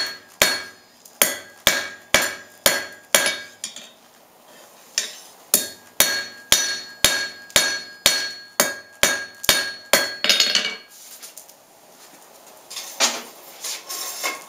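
Blacksmith's hand hammer forging a square steel bar on an anvil, about two blows a second, each blow ringing. The hammering pauses briefly between about three and a half and five seconds in, then stops about ten seconds in, followed by a few lighter clanks as the hammer is set down on the anvil.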